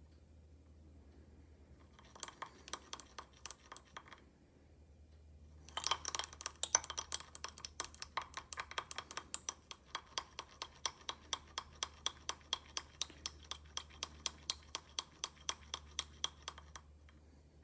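Ice cube and stainless temperature probe clinking against a small glass beaker as the melting ice is stirred. A short run of light clinks about two seconds in, then after a pause steady clinking about three to four times a second until near the end.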